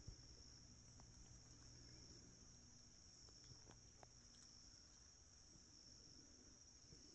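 Near silence with a faint, steady, high-pitched insect chorus and a few faint clicks.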